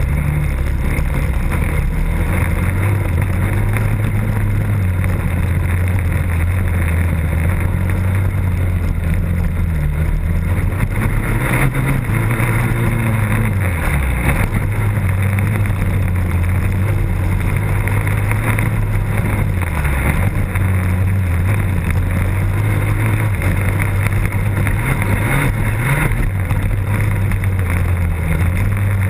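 Engine of an off-road race machine heard onboard, running hard under throttle the whole time. Its pitch sags briefly as the throttle is rolled off about 14 and 20 seconds in, then picks up again.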